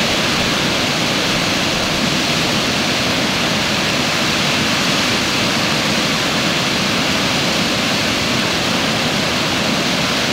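Water pouring over a concrete dam spillway and churning into the foamy pool below: a steady, unbroken rush.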